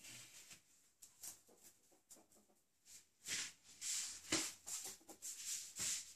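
Faint scuffling and skittering on a tiled floor as a ferret tussles with a small ball. It comes as a string of short, hissy bursts that grow louder and closer together in the second half.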